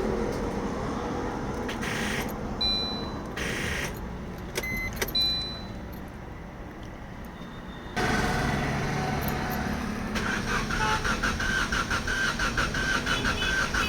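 Maruti Suzuki Swift petrol engine being cranked on the starter and trying to fire: a first attempt, a pause with a few short beeps and clicks, then a second attempt about eight seconds in with an even beat of about four strokes a second.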